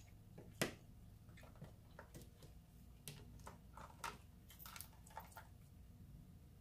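Faint eating sounds: soft scattered clicks and crackles of chewing and handling crab shell, the clearest about half a second in, over a low room hum.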